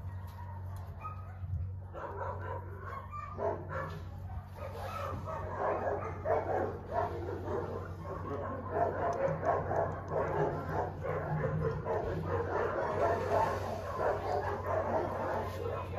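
Many short, high animal cries overlapping one another, growing denser from about two seconds in, over a steady low hum.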